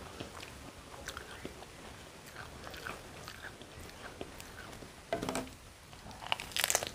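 Crisp fuchka shell (doi fuchka, a puri filled with yogurt and chutney) handled with small crackles, then crunched when the whole filled puri goes into the mouth. The loudest crunching comes near the end, after a short crackle about five seconds in.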